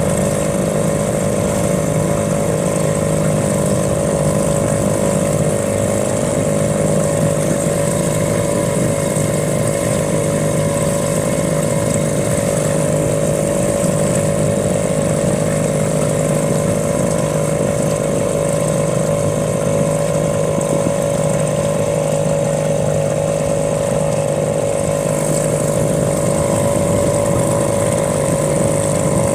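Small boat's outboard motor running at a steady speed, an even drone with a fixed whine that does not change.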